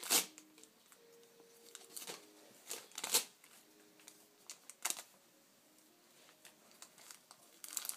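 Tissue paper and gift wrap crinkling in short, scattered rustles as a baby's hands handle it.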